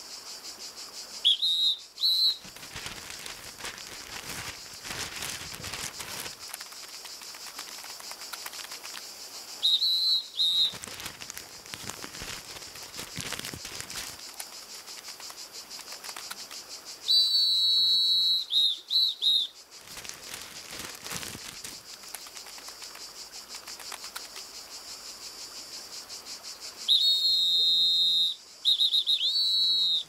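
Cartoon ants' high whistled calls in four spells: short ones near the start and about a third of the way in, longer warbling ones past the middle and near the end. Under them runs a steady high insect drone.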